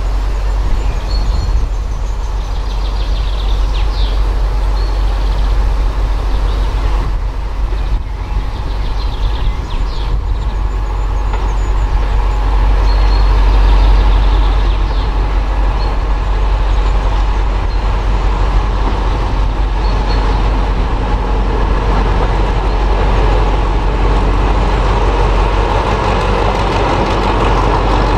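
Class 35 Hymek diesel-hydraulic locomotive, its Maybach V16 engine running steadily as it draws a train of coaches in and passes close by; a deep rumble that swells about halfway through and stays strong.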